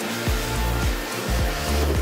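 Pressure washer jet hissing steadily as it sprays down a car's door and window, under background music with a steady beat.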